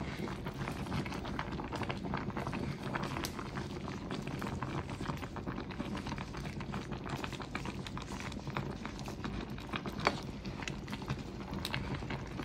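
Sinigang broth boiling in a pot packed with water spinach and pechay: a steady bubbling hiss, with light clicks of the utensils against the pot and one sharper knock about ten seconds in.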